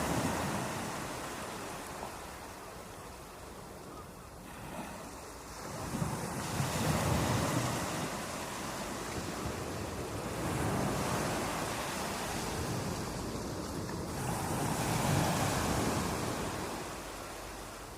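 Sea waves breaking and washing ashore, the surf swelling and falling back every few seconds.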